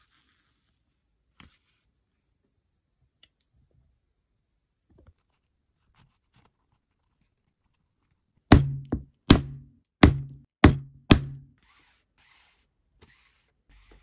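Six sharp knocks in quick succession, each followed by a short low ringing tail, like blows on a hard work surface while a leather wallet is being put together. After the knocks, faint rustling of the wallet being handled.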